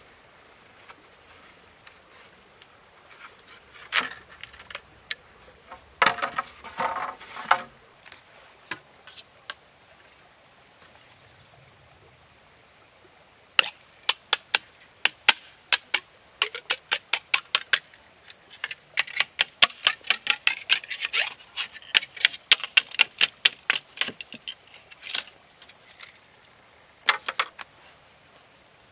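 Sharp knocks of bamboo poles being chopped and split by hand. There are a few scattered strikes, a short crackle about six seconds in, then long quick runs of strikes, several a second, through the middle and again near the end.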